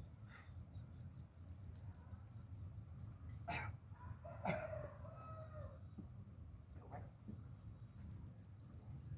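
A rooster crowing once, about halfway through, with two sharp knocks just before and as it begins. A fast, high ticking and a steady low hum go on underneath.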